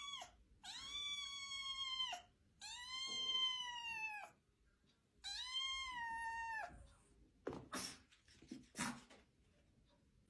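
A cat meowing in long, drawn-out calls: three full meows of over a second each, after the end of another at the very start. A few short faint noises follow near the end.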